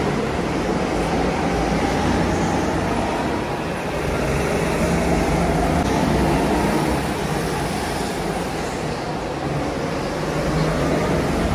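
Steady road-vehicle noise: a dense, even rumble and hiss with no breaks.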